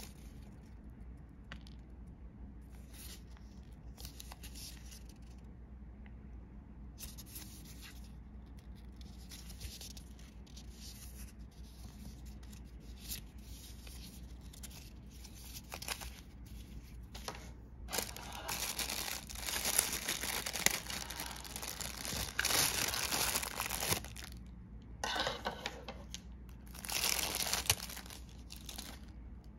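Watch packaging being unwrapped by hand: scattered light rustles, then louder stretches of tearing and crinkling of wrapping about two-thirds of the way in and again near the end.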